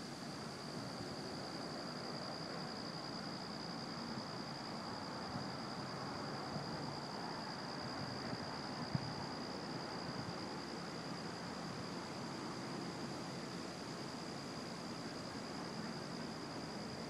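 Quiet outdoor ambience: a steady high-pitched insect drone, typical of crickets, over a low even hiss, with one or two faint clicks.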